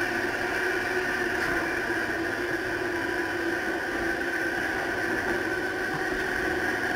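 Steady running noise of a Sydney Trains electric commuter train at speed through an underground tunnel, heard inside the carriage: an even rumble with a constant higher hum over it.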